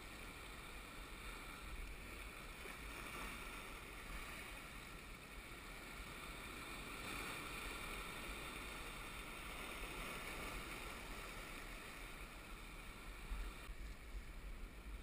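Small waves washing in around rocks at the shoreline, a steady gentle wash of surf that swells and eases.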